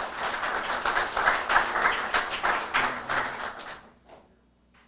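Audience applauding with many hands clapping, dying away about four seconds in.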